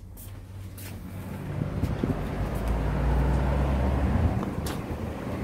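A motor vehicle passing close by, its engine hum growing louder about two seconds in and fading after about four seconds.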